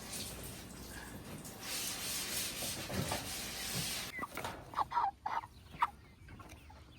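A steady hiss for about the first four seconds, then chickens clucking several short times.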